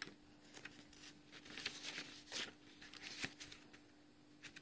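Faint, scattered rustling and light clicks of papers and small items being handled by someone rummaging for a note, over a faint steady hum.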